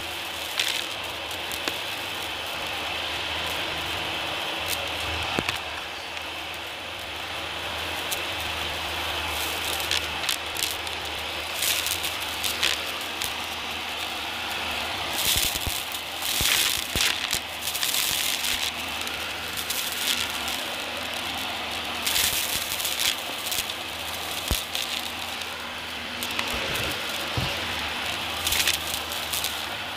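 Dyson cordless stick vacuum running with a steady whine on a hard floor, crackling and rattling in repeated bursts as it sucks up crunchy debris.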